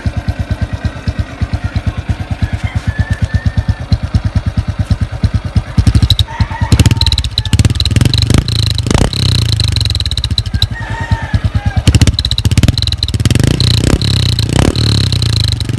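Honda RS 125 fi single-cylinder engine through an Apido aftermarket exhaust pipe with silencer: a steady, even idle pulse for about six seconds, then revved in repeated throttle blips, louder and rougher, to the end.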